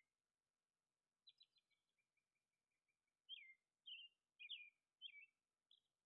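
Faint songbird calls: a quick stutter of high chirps about a second in, then a run of short down-slurred notes repeated about every half second from about three seconds in.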